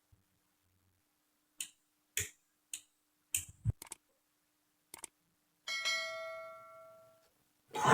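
Small hard objects clicking and tapping about half a dozen times, then a metal part ringing after a knock and fading over about a second, with a short burst of hiss at the end.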